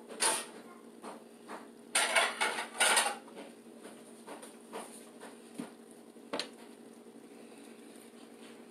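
Kitchen dishes and utensils being handled: a sharp clank just after the start, a burst of rattling clatter about two to three seconds in, and a single knock a few seconds later.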